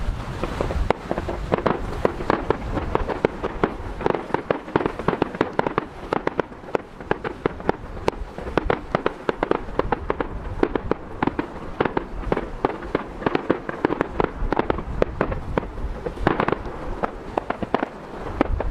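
Fireworks going off in a dense run of rapid crackling pops, many a second, with louder bangs scattered through and a busier flurry near the end.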